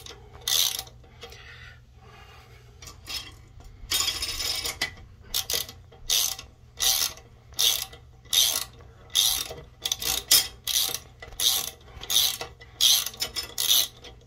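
Socket ratchet wrench turning a toilet-seat anchor bolt: short rasping bursts of pawl clicks, one per back-stroke of the handle. After a lull from about a second to three and a half seconds in, the strokes come steadily, about one and a half a second.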